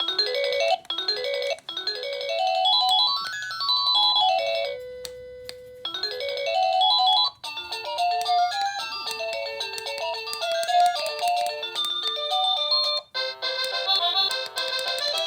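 Wireless doorbell receiver playing electronic chime melodies: quick rising and falling runs of notes, a held tone about five seconds in, then a different tune from about seven seconds and another change near the end.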